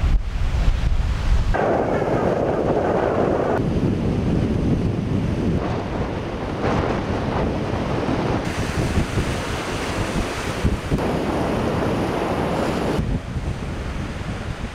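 Strong wind buffeting the microphone over choppy lake water with waves breaking, a steady rushing noise that changes abruptly in character several times.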